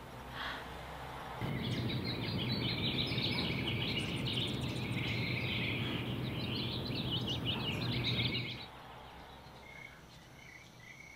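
Dense bird chirping over a steady rushing noise, starting suddenly about a second and a half in and cutting off suddenly about eight and a half seconds in. Faint, evenly repeated high chirps follow near the end.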